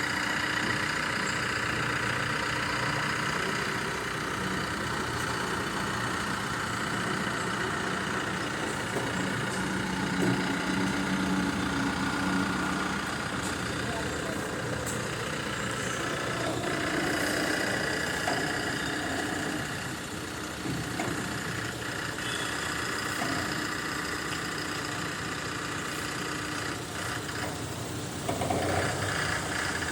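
An engine idling steadily, with faint voices now and then.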